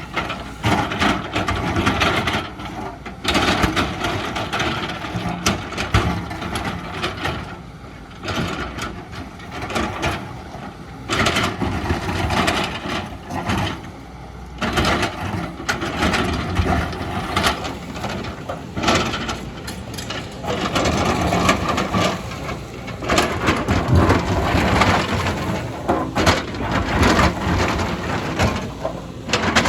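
Excavator digging into a hillside: the engine working under load while the bucket scrapes and breaks through soil and rock, with repeated knocks and cracks of rock and earth falling and crushing.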